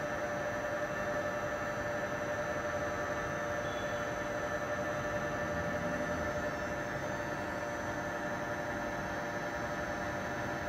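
Takisawa VMC-40 CNC vertical machining center running at a steady speed: an even mechanical hum and whine with several held tones over machine noise.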